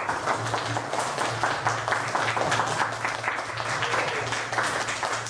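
Audience applauding: many hands clapping quickly and unevenly, over a low steady hum.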